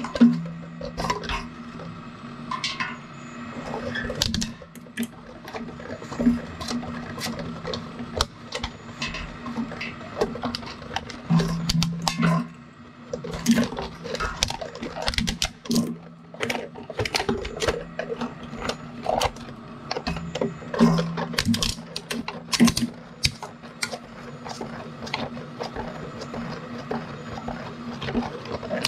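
Twin-shaft shredder running with a steady low hum while its cutters grind a pair of Celestron binoculars, the rubber-armoured barrels cracking and snapping in irregular sharp crunches.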